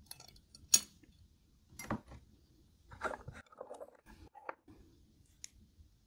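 Scattered light clinks and taps of a metal spoon against a bowl while bibimbap is being mixed, the sharpest just under a second in, with a small run of softer clinks near the middle.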